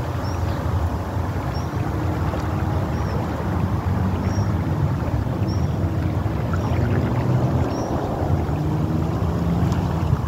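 Steady low rumble of wind on the microphone and fast-running canal water, with faint short high chirps recurring about every second or so.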